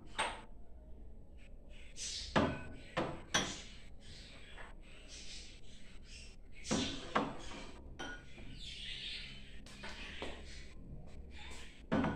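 Glassware and dishes being set down on a cabinet shelf: a series of sharp clinks and knocks, spaced irregularly, with faint handling noise between them.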